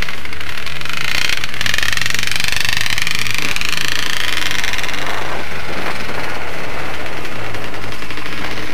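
Off-road vehicle engine running under way on a dirt trail, heard through a camera mounted on the moving vehicle. About a second in, a high whine starts and slowly climbs in pitch for a few seconds.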